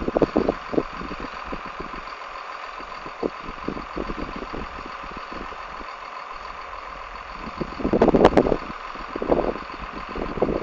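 Diesel engine of harvest machinery running steadily at an even speed, with gusts of wind buffeting the microphone about eight seconds in.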